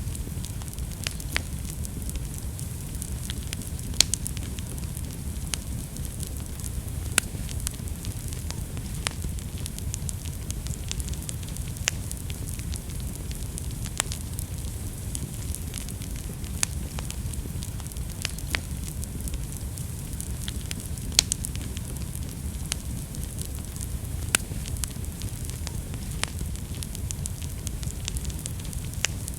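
Wood fire burning in a fireplace: a steady low rumble of flames with irregular crackles and occasional sharper pops, a few of them louder, about 4, 7, 12 and 21 seconds in.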